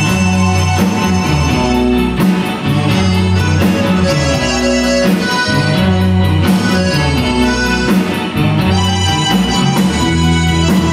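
A live band playing a song: button accordion, electric guitar, bass guitar and drums, with a steady beat and bass notes that change every second or so.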